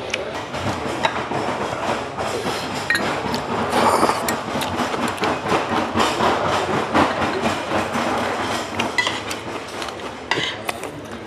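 Eating at a table: chewing, with chopsticks and metal spoons clicking and clinking against dishes and stone pots many times.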